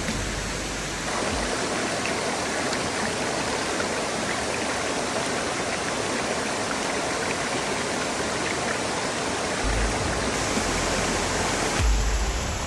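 Small waterfall rushing steadily over rocks, a dense even roar of falling water. A couple of low thumps come near the end.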